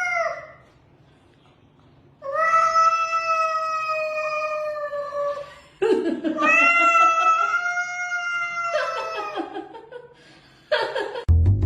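A cat yowling in two long drawn-out calls, each held for several seconds, the second starting rougher and wavering in pitch. Music starts just before the end.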